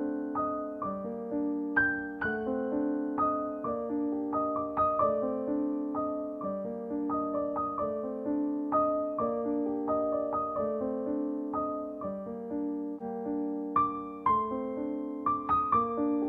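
Background music: a gentle piano tune of single notes struck one after another, each fading away.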